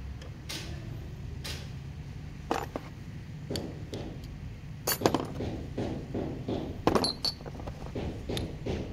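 Hand tools clinking and knocking on metal as a socket wrench and extension are worked at a jet ski's pump to take off the propeller. Scattered sharp clinks, the loudest about five and seven seconds in, are followed by a run of lighter, quicker clicks.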